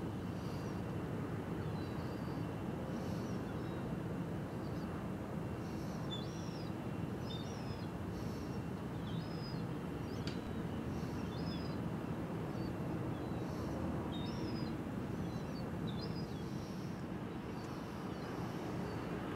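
Steady low rumble of outdoor background noise, with small birds chirping in short calls scattered throughout and one sharp click about ten seconds in.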